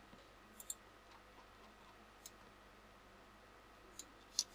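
A few sharp clicks from computer controls (mouse and keys) over faint room tone: a close pair about half a second in, one a little after two seconds, and two near the end.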